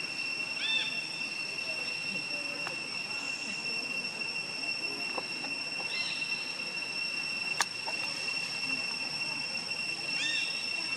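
Steady high-pitched insect drone, two unbroken tones, with three short chirps and one sharp click partway through.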